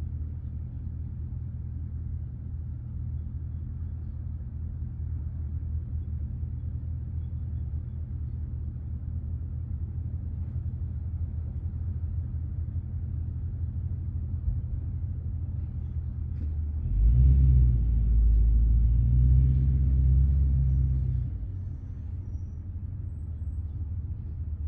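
A steady low rumble that swells louder for about four seconds near the end, then settles back.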